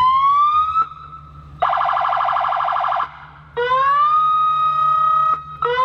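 Aftermarket electronic siren fitted to a truck, run through its tones: a siren wail that rises in pitch, a harsh buzzing horn tone for about a second and a half, then two more wails that rise and level off, the second starting just before the end.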